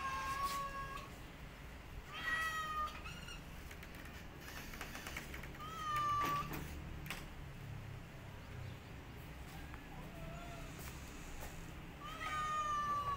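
A tabby mother cat meowing repeatedly: four long, loud meows a few seconds apart, with a fainter one between the last two.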